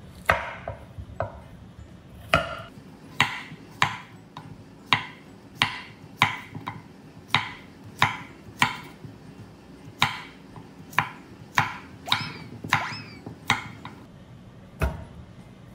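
Chef's knife slicing a fresh cucumber into thick rounds on an end-grain wooden cutting board: a crisp crunch through the cucumber and a knock of the blade on the wood, about once or twice a second, some twenty cuts in all. One heavier, deeper thump near the end.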